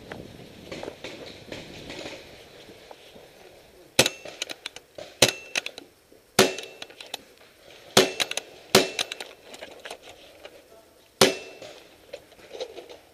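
Paintball markers firing: about six sharp single cracks, irregularly spaced a second or more apart, some with a brief metallic ring. The first few seconds hold shuffling movement.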